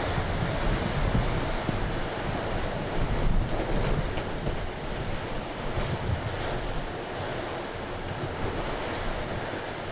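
Strong gusting wind rushing and buffeting the microphone in a storm, rising and falling in gusts.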